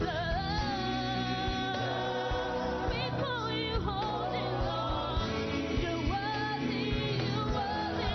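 Gospel song with singing voices over instrumental backing with a steady beat.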